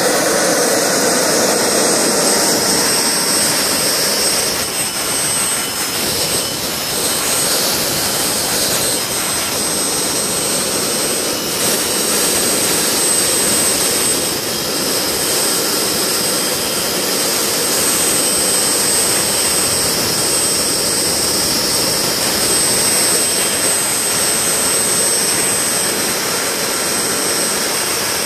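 PST Jets turbine power generator, a small gas turbine driving an alternator, running steadily: a loud continuous jet rush with a thin high whine held at one pitch.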